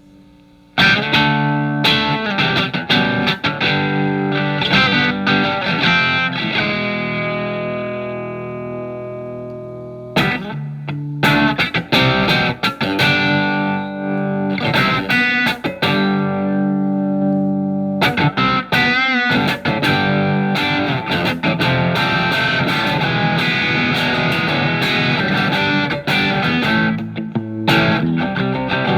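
Electric guitar (Telecaster) played through a Marshall MG15FX amplifier on its OD1 overdrive channel: distorted strummed chords and riffs. A chord is struck about a second in and left ringing until it fades at about ten seconds, then the riffing resumes.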